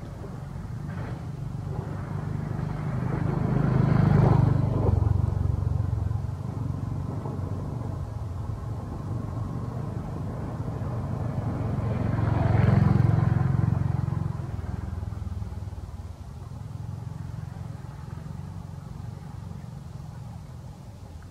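Motor vehicles passing by twice, each one's engine hum and road noise swelling to a peak and fading away, with a lower steady engine hum between and after.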